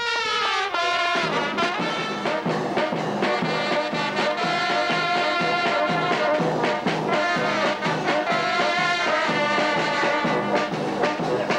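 Brass band playing a lively tune, horns carrying the melody over a steady drum beat that comes in about a second in.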